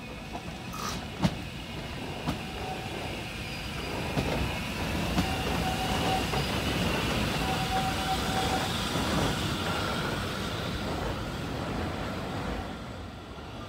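Bayerische Zugspitzbahn train running on the rails: a rumble that grows louder to a peak in the middle and eases off near the end, with a few sharp clicks early on and two short high steady tones in the middle.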